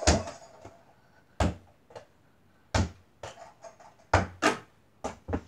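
Mini basketball hitting a door-mounted mini hoop and bouncing, heard as a series of sharp thuds about one every second and a half, with two close together past the four-second mark.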